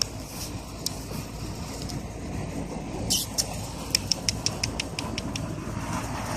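Steady low rumbling background noise, with a quick run of about eight sharp clicks, roughly six a second, around four to five seconds in.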